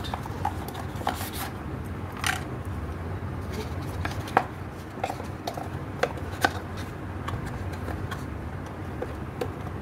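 Hands handling a cardboard box, its inserts and a small plastic-and-fabric smart speaker: a scattered run of light taps, knocks and rustles. The sharpest knocks come about four and a half and six and a half seconds in, over a steady low hum.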